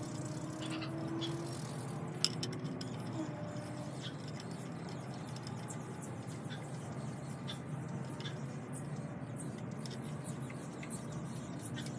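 Scattered light clicks and taps of hands working on the wooden parts of a furniture frame being assembled, with one sharper knock about two seconds in, over a steady low background hum.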